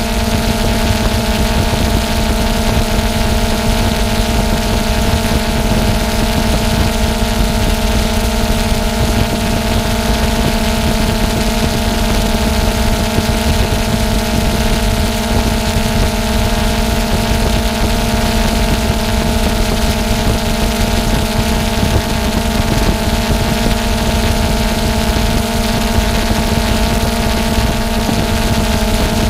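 Drone's electric motors and propellers running with a steady whining hum over a rush of air, loud and close on the drone's own camera microphone as it hovers.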